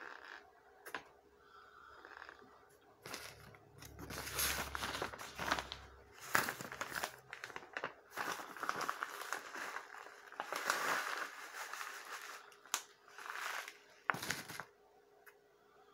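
A large white wrapper crinkling and rustling as it is handled close up, in irregular bursts.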